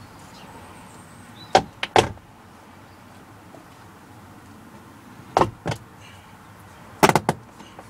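Plastic door card of a Jaguar X-Type being pushed by hand onto the door, its fixings clicking and knocking home in three short clusters: about one and a half seconds in, about five and a half seconds in, and around seven seconds in.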